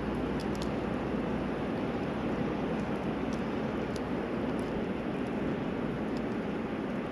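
Small wood fire burning in a compact B-6君 portable grill, a few faint crackles scattered over a steady rushing background noise.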